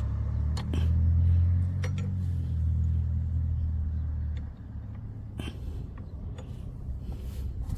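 A low rumble that falls away about four and a half seconds in, with a few sharp metallic clicks from a wrench tightening the lock nuts on a motorcycle shift lever's adjusting bar.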